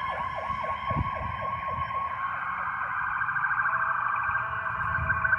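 Ambulance siren running on an emergency response: one electronic tone sweeps rapidly up and down about six times a second for the first three seconds, while a second, higher siren tone holds steady and then turns to a fast warble. There is a low vehicle rumble underneath and a single thump about a second in.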